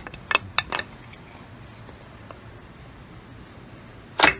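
Several sharp wooden and metal knocks in the first second, then one loud knock about four seconds in: a spring-loaded lever on old sawmill machinery being worked to fling a chunk of wood.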